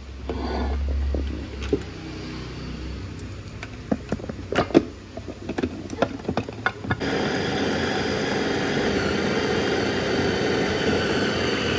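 A 650 W electric food chopper's motor grinding minced meat with spices. It runs in a short burst near the start, then a few seconds of clicks and knocks follow, and from about halfway it runs steadily.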